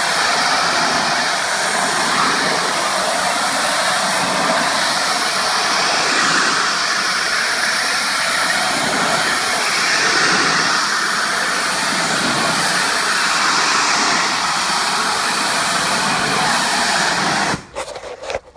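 Pressure washer spray hissing steadily as it blasts the patio surface, stopping abruptly near the end.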